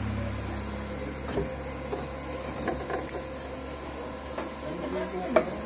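Steady mechanical hum of distillation-plant machinery running, with scattered clicks and knocks; the sharpest knock comes near the end.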